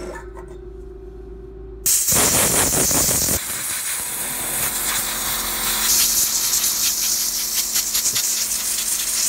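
Compressed-air gun blowing dust off an AntMiner S9 hashing board's heatsink fins: a loud steady hiss of air that starts suddenly about two seconds in, fuller for the first second or so, and flutters as the jet moves over the fins. A low hum comes before it.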